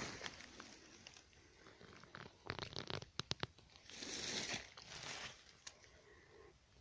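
Fallen leaves rustling and crackling as someone shifts in the leaf litter: a quick run of crackles about two and a half seconds in, then two soft swishes around four and five seconds in.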